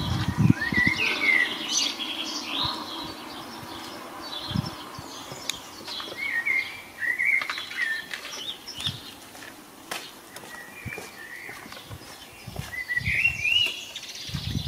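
Songbird singing outdoors in three short phrases of quick chirping notes, one near the start, one around the middle and one near the end. A few low thumps come near the start and near the end.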